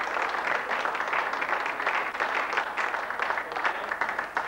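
Audience applauding, a dense and steady patter of many hands clapping.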